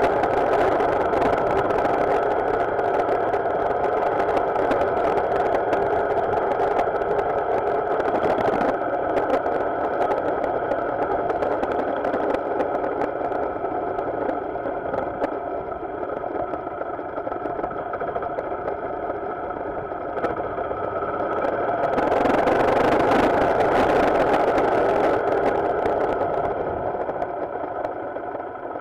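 Motorcycle engine running at a steady pitch. A hissing rush rides over it for the first eight or so seconds, and again, louder, from about 22 to 25 seconds.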